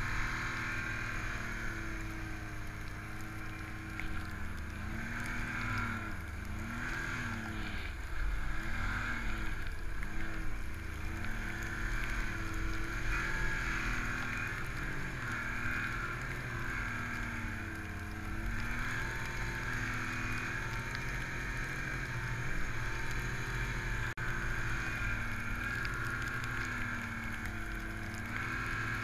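Ski-Doo MXZ Renegade 1200 4-TEC snowmobile's four-stroke engine running under load through deep powder, its pitch rising and falling over and over with the throttle, over a steady rushing hiss.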